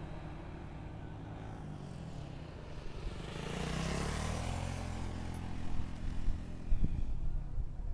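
A motor vehicle engine running past at a distance, its pitch and loudness rising to a peak midway and then falling away. A few low thumps come near the end.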